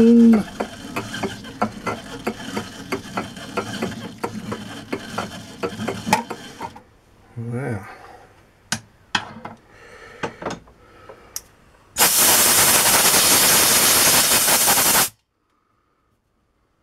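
Steel die in a hand die stock cutting a thread on a steel bar, a dense run of rapid clicks and scraping. Then scattered clicks as the threaded bar is handled, and about 12 s in, a three-second blast of compressed air from a blow gun that stops abruptly.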